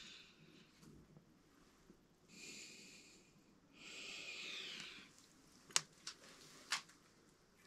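Two breathy exhales close to the microphone, then three light, sharp clicks of small metal tool parts being handled against a steel block.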